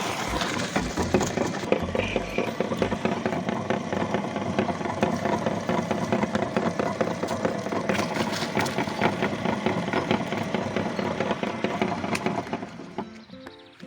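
Meat grinder running and crunching corn sticks: a steady motor hum under dense crackling and snapping. It dies away near the end, and a few notes of music begin.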